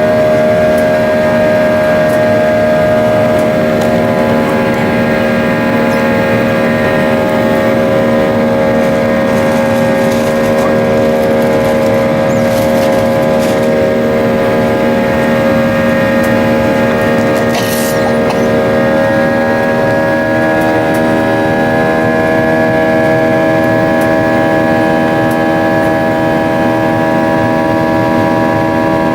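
Boeing 737 jet engines running, heard from inside the cabin: a steady whine of several fixed tones over a rushing hum, the tones shifting slightly in pitch about twenty seconds in.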